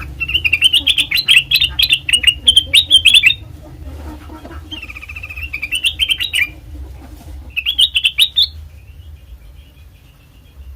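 Kutilang emas, a bulbul, singing in three bursts of quick, warbling, up-and-down notes, the first about three seconds long, the next two shorter, over a steady low hum.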